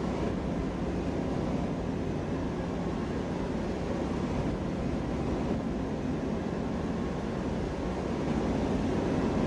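Horror-film woods ambience: a steady, low rumbling wind-like drone with a faint underlying hum, swelling slightly near the end.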